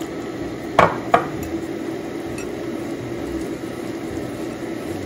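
Wire whisk stirring a dry flour batter mix in a glass bowl, a steady scraping rustle, with two sharp clinks of the whisk against the glass about a second in.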